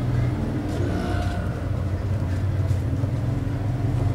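A steady low engine rumble, with a few faint clicks over it.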